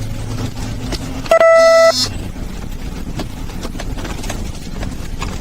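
A loud, steady single-pitched beep or horn-like tone, about two-thirds of a second long, about a second in, over a steady low vehicle rumble.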